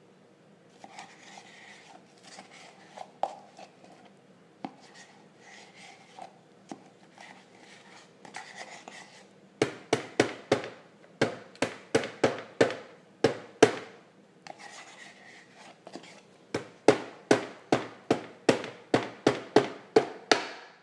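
A metal spoon scraping frozen yogurt out of a plastic tub, then two runs of quick, sharp taps, about three or four a second, as the spoon is knocked against the rim of the plastic blender pitcher to shake the sticky yogurt off, with a little more scraping between the runs.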